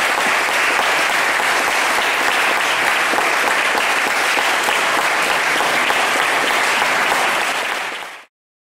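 Audience clapping steadily after a tango performance, fading out about eight seconds in.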